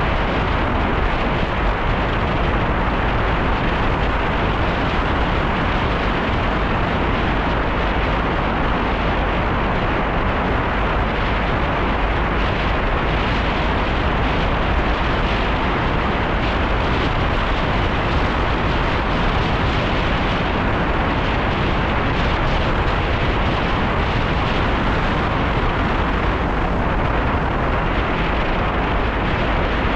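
Wind buffeting a microphone on a moving bicycle: a loud, steady rushing noise with a heavy low rumble that masks everything else.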